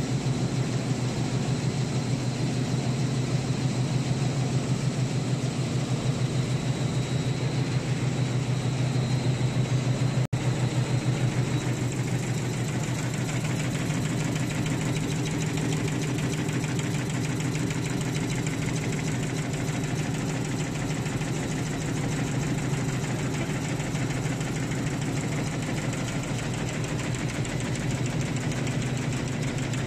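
High-speed warp knitting (fishing net) machine running at speed, a steady fast mechanical clatter over a low hum from its needle bars and guide bars cycling, with a brief break about ten seconds in.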